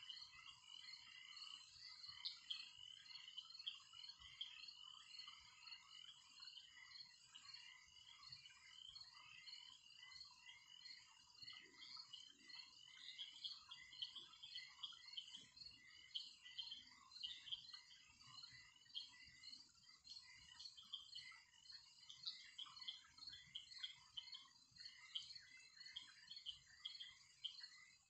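Faint, steady crackling and sizzling of cooking oil heating in a nonstick frying pan: a dense patter of tiny pops as small bubbles rise through the hot oil.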